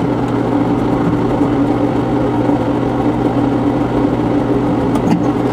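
A steady mechanical hum, like a motor running, holding an even pitch and level without change.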